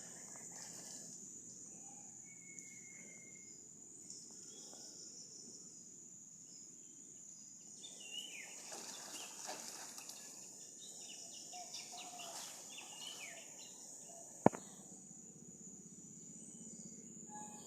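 Outdoor ambience of a steady, high-pitched insect drone, like crickets, with scattered short bird chirps. A single sharp click about three-quarters of the way through is the loudest sound.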